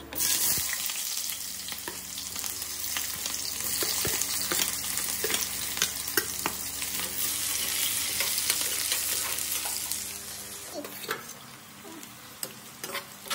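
Chopped onions and green chillies dropped into hot oil in a steel kadhai, starting to sizzle suddenly, with a steel ladle clicking and scraping against the pan as they are stirred. The sizzle eases off after about ten seconds.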